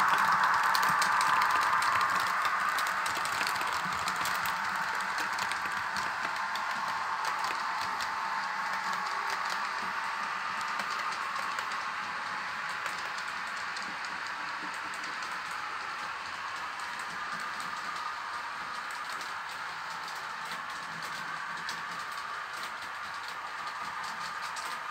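Model train running on the layout track: an NS 1700-class electric locomotive model pulling ICR coaches, a rolling whir with rapid clicking of wheels over the rail joints. It is loudest during the first couple of seconds as the train passes close, then fades to a steadier, quieter running sound.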